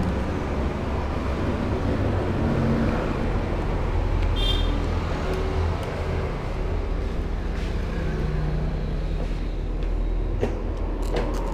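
Steady rumble of road traffic, with engine hum rising and falling as vehicles pass. A brief high chirp comes about four and a half seconds in, and a few light clicks near the end.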